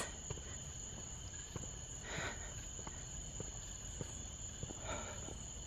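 Steady chorus of night insects, a continuous high-pitched trilling. Two faint rustling footsteps, about two and five seconds in.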